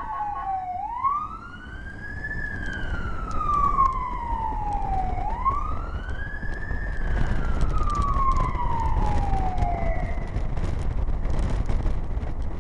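Fire department vehicle's siren on wail, heard from inside the moving vehicle. It goes through two slow cycles, each rising quickly and then falling gradually over about three seconds, and stops about ten seconds in. Road and engine rumble of the vehicle runs underneath and grows louder in the second half.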